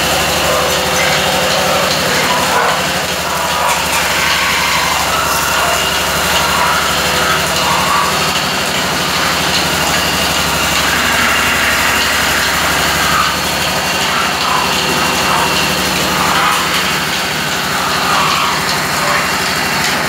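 Metal spinning lathes running steadily in an aluminium workshop: a constant motor hum with a steady high whine over it.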